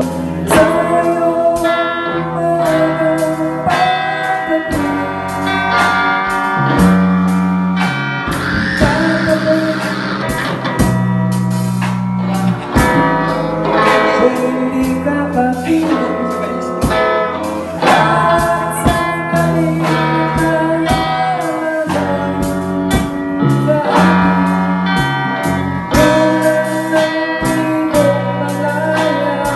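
A small live band playing: an electric guitar takes the lead over a drum kit keeping a steady beat and a bass guitar underneath.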